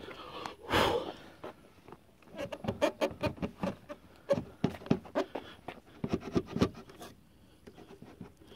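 Hard plastic Audi A2 headlamp unit knocking and clicking against the front panels as it is pushed and wiggled onto its mounting clip, a quick run of irregular knocks through the middle. A short loud rush of breath-like noise about a second in.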